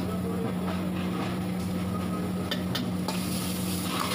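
A metal ladle knocking and scraping in a steel wok of frying meat over a steady low hum. About three seconds in, a loud hissing sizzle sets in as liquid hits the hot wok and throws up steam.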